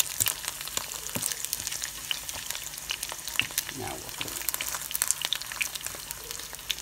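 An egg frying in hot oil in a nonstick pan: the oil sizzles steadily with a dense stream of small crackles and pops.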